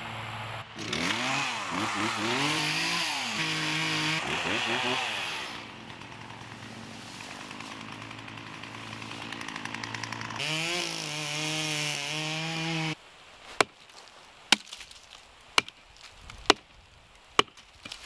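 Two-stroke chainsaw revving, its pitch rising and falling, then settling lower before revving again. Near the end, a long-handled chopping tool strikes the soil and roots at the base of a maple trunk five times, about once a second.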